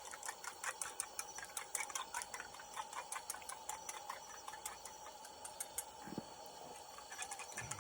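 Wood campfire crackling, with irregular sharp pops that are dense at first and thin out later.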